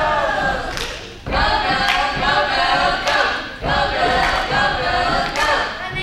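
A group of children singing together, in held phrases that break off briefly about a second in and again just past halfway, with a few thumps along the way.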